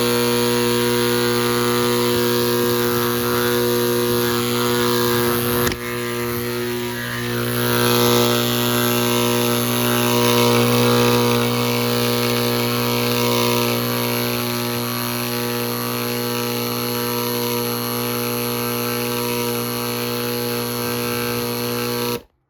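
Hiblow HP-80 linear diaphragm septic air pump running with a steady electric buzzing hum, plausibly on test after its rebuild. There is a brief knock about six seconds in, and the pump cuts off suddenly near the end.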